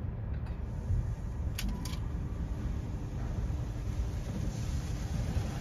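Tunnel car wash machinery running, heard from inside the car: a steady low rumble, with two sharp clicks about a second and a half in, and near the end the hiss of water spray hitting the windshield.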